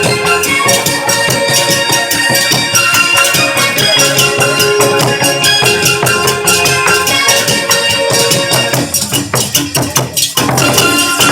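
Lively pumba performance music with a fast rattling, clacking percussion beat over pitched accompaniment; the sound thins briefly near the end before picking up again.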